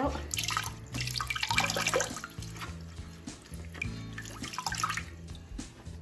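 Water wrung from a soaked microfiber rag splashing and dripping into a toilet bowl, in two spells, over background music with a steady bass line.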